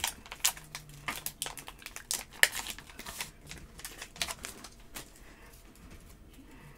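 Baseball cards being flipped through quickly by hand, card after card, making a run of irregular flicks and clicks that thins out after about five seconds.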